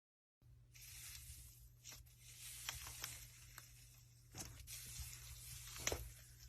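Slime being mixed and stretched by hand: faint sticky crackling and squishing, with several sharp little pops, the loudest near the end.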